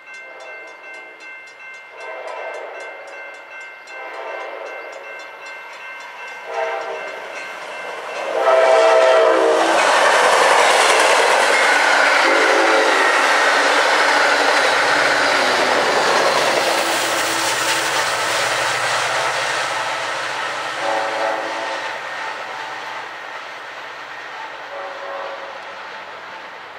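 Amtrak passenger train's diesel locomotive horn sounding a series of blasts while a grade-crossing bell rings. The train then passes close by with a loud rush of wheels on the rails. Two more horn blasts follow near the end.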